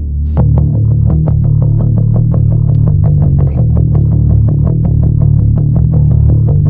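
Music: a fast, even run of picked guitar notes with distortion over a heavy bass line and synthesizer, starting about half a second in over a low drone.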